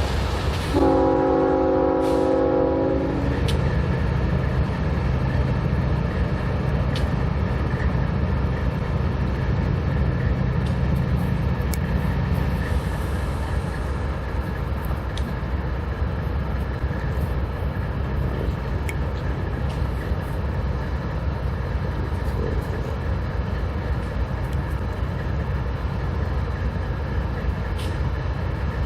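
BNSF freight train: a diesel locomotive's air horn sounds one chord of several notes for about two seconds, over the continuous low rumble of the train running past. Occasional sharp clicks sound through the rumble.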